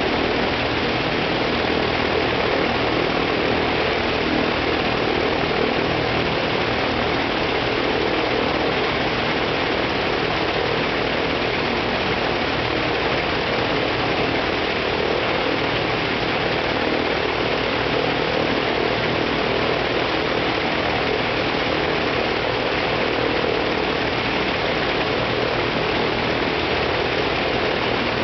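Ilyushin Il-14T's left engine, an ASh-82T twin-row 14-cylinder air-cooled radial, running steadily on the ground with its propeller turning. The propeller and engine make a dense, even drone that holds at one level.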